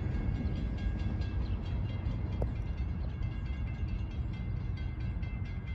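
Steady low rumble of a train out of sight, with faint rapid ticking and thin high tones over it.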